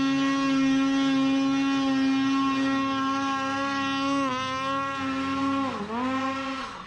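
Two-stroke mountain snowmobile engine held at high revs with a steady note. Its pitch dips briefly about four seconds in, then dips deeper and recovers near the end.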